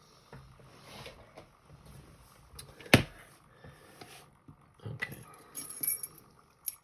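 Small metal handling clicks and rustles from a pin tumbler lock and lockpicking tools being handled, with one sharp click about three seconds in and a run of lighter clicks and rattles near the end.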